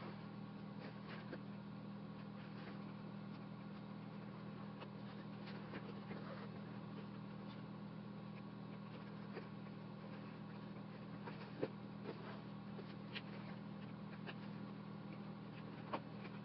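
Faint rustling and small ticks of hand sewing: a needle and thread being pulled through a patrol cap's fabric and the cap being handled. Two sharper ticks come in the second half, over a steady low hum.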